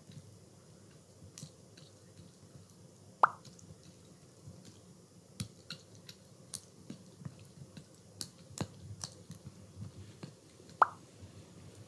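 A toy poodle's wet mouth noises, made with its head pressed into its bed: a run of small smacking clicks, and two sharp plops with a quick downward pitch, one about three seconds in and one near the end.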